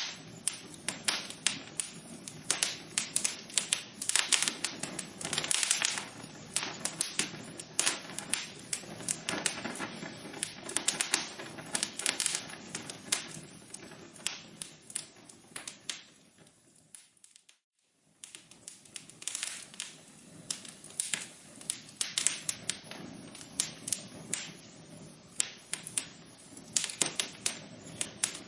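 Wood fire crackling in a fireplace: dense, irregular sharp pops and snaps over a soft hiss. About two-thirds of the way through it fades out to near silence for a moment, then comes back.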